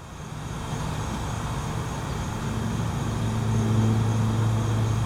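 Low, steady engine hum of a passing motor vehicle, growing gradually louder.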